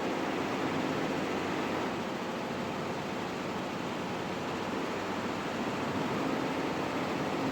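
Embroidery machine running: a steady mechanical whirr with a faint hum that eases off in the middle and comes back near the end.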